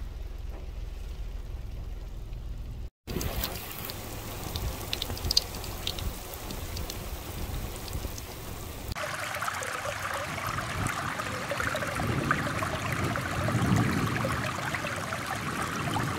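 Flash-flood water rushing and splashing over stones and gravel, in short clips joined by abrupt cuts. The rushing gets louder and brighter about nine seconds in.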